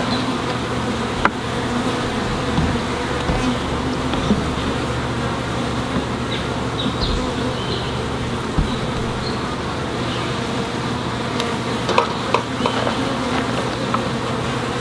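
Honeybees from an opened hive buzzing as a dense, steady hum, with a few light clicks and knocks, one about a second in and several near the end.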